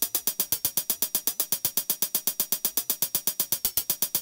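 Programmed hi-hat loop playing evenly, about eight crisp hits a second. Its pitch is being randomly wobbled by a random-LFO rack for subtle analogue-style humanization.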